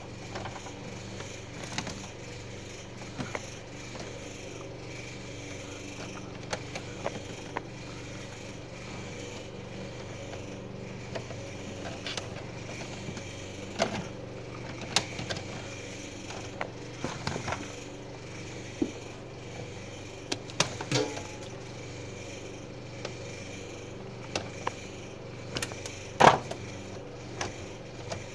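Scattered clicks, taps and scrapes from gloved hands handling wires and metal in an open electrical breaker panel, over a steady background hum; the loudest knock comes near the end.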